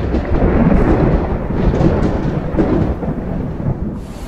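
Deep rolling thunder rumble, a sound effect that runs continuously and eases off near the end.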